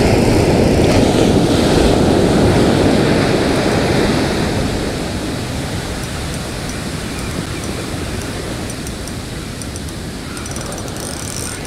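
Ocean surf breaking and washing up the beach, louder over the first few seconds, then easing to a steady wash.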